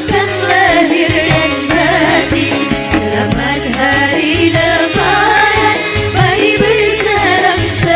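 Religious song: a singing voice carries a wavering, ornamented melody over a steady, repeating bass beat.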